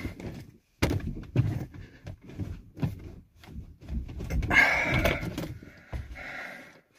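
Irregular knocks and thunks as a car steering wheel and its fittings are yanked and worked at by hand, being forced off.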